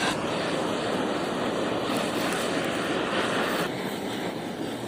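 Gas blowtorch flame roaring steadily while singeing leftover hair off a cured pig's trotter, softening a little about three and a half seconds in.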